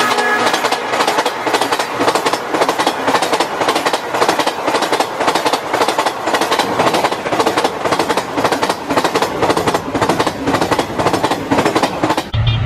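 A train passing at speed, its wheels clattering over the rail joints in a rapid, steady rhythm of clacks.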